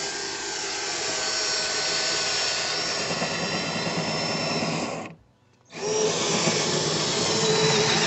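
Cordless drill boring a small access hole into a hydraulic roof lock cylinder, to reach the internal retaining clip. It runs steadily with a thin whine for about five seconds, stops for half a second, then runs again to the end.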